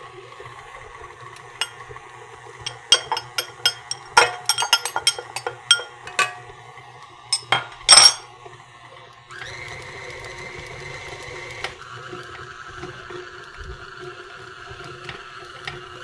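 KitchenAid stand mixer running, its flat beater working almond shortbread dough in the steel bowl. A quick run of sharp metal and glass clinks sounds over the motor hum for the first eight seconds. About nine seconds in, the mixer gets louder with a steady whine, and the pitch drops a couple of seconds later.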